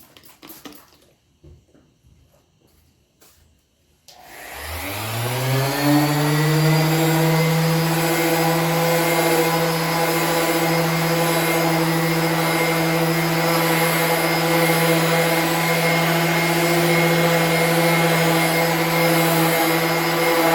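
An electric polishing tool starts about four seconds in, rises in pitch as its motor spins up, then runs steadily with a constant hum. A few faint handling clicks come before it starts.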